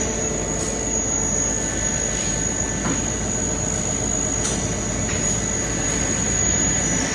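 Hitachi Seiki CNC lathe running: a steady mechanical noise with a constant high whine over it.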